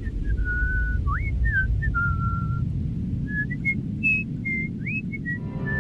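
Someone whistling a slow, wandering tune: a single pure note that slides up and drops between short held pitches, with a steady low rumble underneath.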